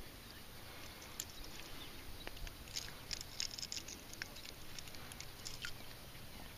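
Faint scattered clicks and light ticks, thickest around the middle, while a hooked largemouth bass is reeled in and landed.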